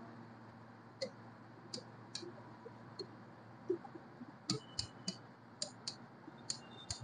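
Marker pen writing on a whiteboard: faint, scattered taps and clicks of the tip against the board, with a couple of short high squeaks, about halfway through and near the end.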